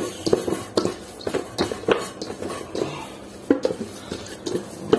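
Hands kneading and slapping minced meat for kefta in a stainless-steel bowl: irregular wet slaps and knocks of the meat and fingers against the metal, some with a brief ring from the bowl.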